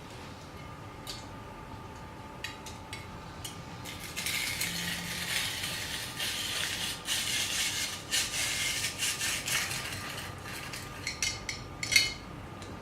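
Rotary cheese grater in use: a few plastic clicks, then about six seconds of scraping as its stainless steel drum is cranked, then more clicks ending in one sharp click near the end.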